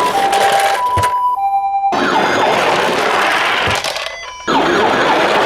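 Toy ambulance minicar's electronic hi-lo two-tone siren, alternating between a high and a low note about every half second. About two seconds in, a harsher toy siren of quickly repeating falling sweeps takes over; it drops away briefly near the end and then starts again.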